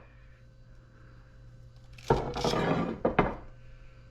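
Metal motor parts handled on a bench: quiet at first, then a short rattling clatter about two seconds in, followed by a single sharp clink.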